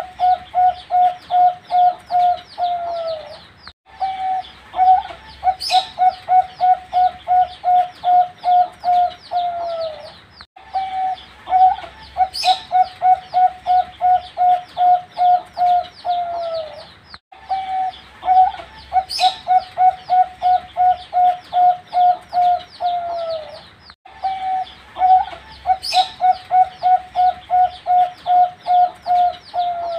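Young zebra dove (perkutut) cooing its song over and over: each phrase is a quick, even run of a dozen or so staccato notes ending in a falling note, and the phrase repeats about every six and a half seconds. A short, sharp high chirp comes once in each cycle.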